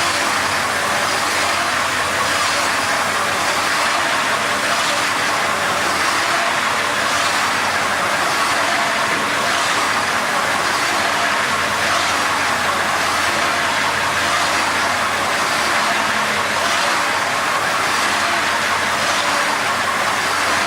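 Spring end wet grinder running: a steady grinding, hissing noise over a low motor hum, with a faint regular pulse about once a second.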